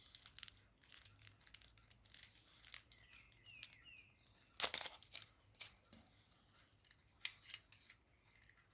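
Faint handling noises of a plastic toy sonic screwdriver being opened up to reach its battery: small scrapes and light clicks of plastic parts, with one sharper click about halfway through and a couple more near the end.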